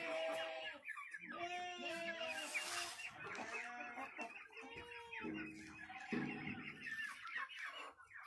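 A flock of Light Brahma chickens clucking and calling, with many short calls overlapping.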